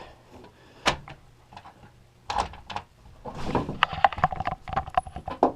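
Hinged bed platform in a motorhome being lifted to reach the engine: a click about a second in, then a run of wooden knocks and rattles as it is raised.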